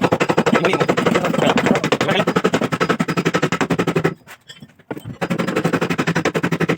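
Rapid hammering on the sheet metal of a Maruti Suzuki Swift's rear quarter panel: a fast, even run of metal strikes that breaks off for about a second past the middle and then starts again.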